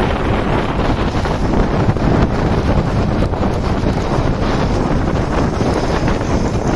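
Wind rushing hard over the microphone of a phone on a moving motorcycle: a loud, steady noise of wind and road with no distinct engine note.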